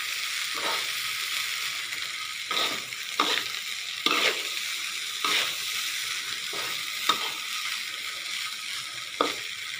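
Soaked raw rice and corn kernels sizzling in oil in a metal wok, stirred with a metal spatula that scrapes against the pan about seven times at uneven intervals over the steady sizzle. This is the rice being sautéed with the corn before it goes into the rice cooker.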